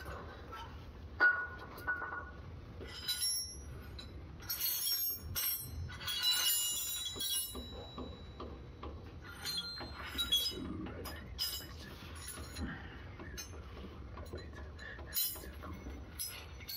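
Metal wrenches clinking and clanking, picked out of a set, knocked together and tried on a brake-line fitting, in scattered bursts of sharp ringing clinks.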